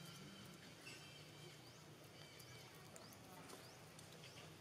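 Near silence: faint outdoor ambience with a few short, high rising chirps and scattered light clicks over a low steady hum.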